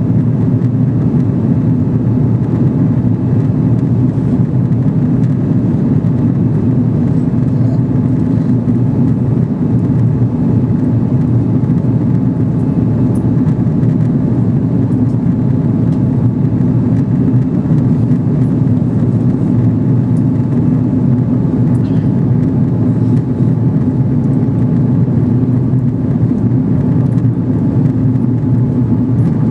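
Steady, unbroken cabin drone of an Airbus A330 airliner in flight: engine and airflow noise, low and even, with a faint steady tone above it.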